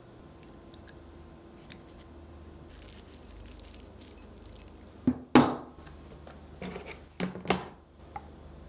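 Sharp clinks and knocks of wooden chopsticks and dishes against a glass food container. They come in a cluster of about six strikes starting about five seconds in, the loudest near the start of the cluster, after a stretch of faint room tone.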